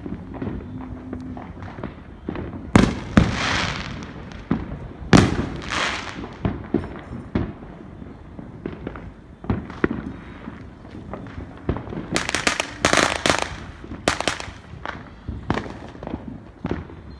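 Fireworks going off: a steady run of sharp bangs, with louder bursts about three and five seconds in and a cluster of several loud, crackling bursts around twelve to fourteen seconds in.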